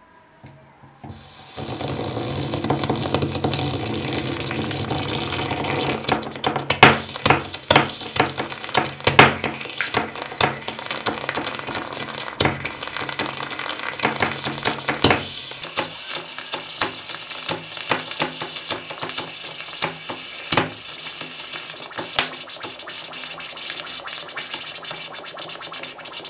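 Red-hot metal ball sizzling against the material it rests on: a steady hiss starting about a second and a half in, joined by many sharp crackles and pops that thin out after about fifteen seconds.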